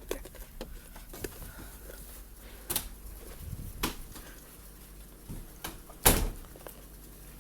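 Kitchen handling sounds: a few light knocks and clatters, then one loud thump about six seconds in, like a cupboard or door being shut.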